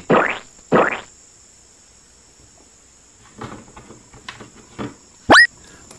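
A squeezed mesh-bead squishy ball squelches twice near the start. A little later come light clicks of plastic toys being shifted in a plastic tray, then a short, loud rising squeak shortly before the end. A faint steady high whine runs underneath.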